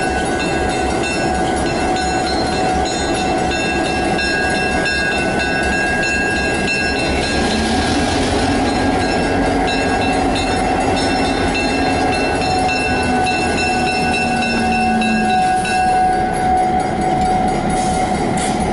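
EMD GP7 diesel-electric locomotive running as it rolls slowly past through a grade crossing, a steady heavy engine drone with wheel and rail noise.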